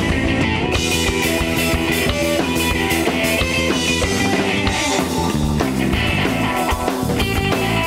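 Instrumental rock music: a band playing electric guitars and a drum kit, with no singing.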